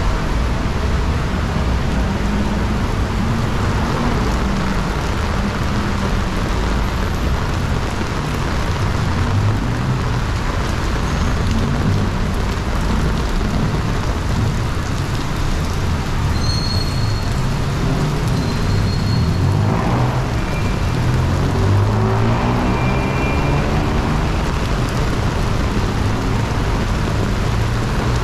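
Busy city road traffic: a steady wash of engine and tyre noise. About twenty seconds in, one vehicle's engine rises and falls in pitch as it passes close by.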